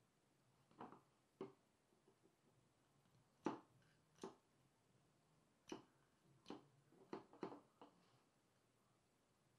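A series of light, irregular clicks and taps, about nine over several seconds, the loudest about three and a half seconds in, with quiet between them.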